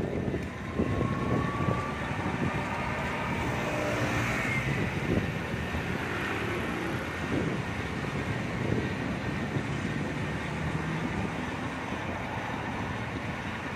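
Steady street traffic and road noise heard while riding a bicycle through a city, with no single sound standing out.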